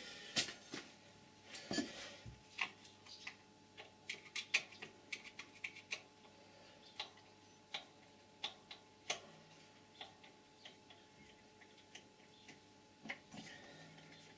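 Irregular light clicks and taps of hand tools and small parts against the air compressor's head as it is taken apart, some coming in quick little clusters.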